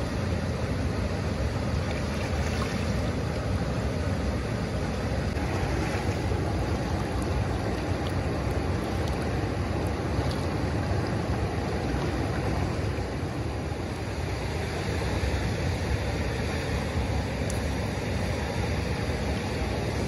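Wind buffeting the microphone: a steady low rushing noise with a few faint ticks.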